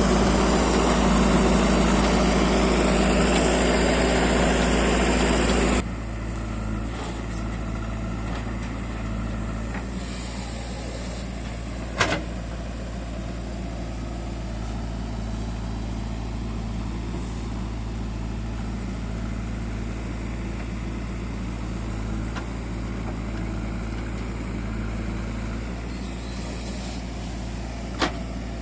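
Heavy diesel engine running loudly, then dropping suddenly about six seconds in to a quieter steady run. Two sharp knocks, about twelve seconds in and near the end.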